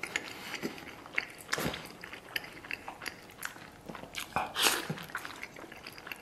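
Close-up eating sounds: a man blowing on a braised chili pepper and biting into it, with scattered short wet mouth clicks and a longer breathy stretch past the middle.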